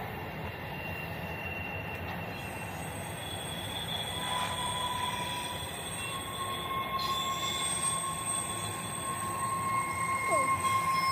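Train rolling by on the rails, a steady rumble and rush of wheels with thin, sustained squealing tones from the wheels, growing gradually louder toward the end.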